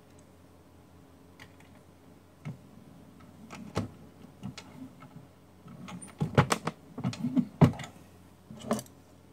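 Irregular clicks and knocks of a single-stage reloading press and brass cartridges being handled while bullets are seated. The clacks come sparsely at first, then in a quick, louder cluster between about six and eight seconds in.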